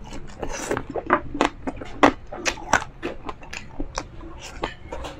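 A person chewing a mouthful of crispy pork binagoongan and rice, with sharp crunching crackles about three times a second.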